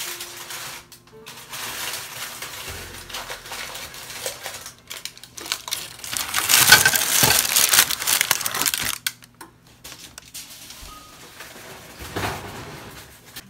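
Aluminium foil and parchment paper crinkling as the kugel pans are handled, with small clinks of dishes; the crinkling is loudest for a few seconds in the middle.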